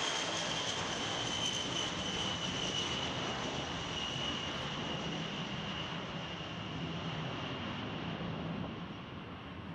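B-52H bomber's eight TF33 turbofan jet engines at takeoff power as the aircraft lifts off and climbs away: a steady jet roar with a high whine that slowly drops in pitch, growing a little fainter near the end.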